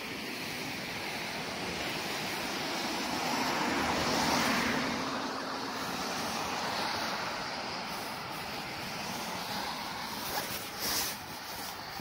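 Road traffic noise: the steady rush of cars on a nearby road, one vehicle swelling past about four seconds in. A few short knocks near the end.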